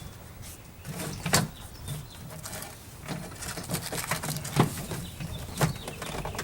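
Car door trim panel knocking and rustling against the door frame as it is worked up and over the lip at the top of the door, with a few sharp knocks, the loudest about a second and a half in and again past the middle.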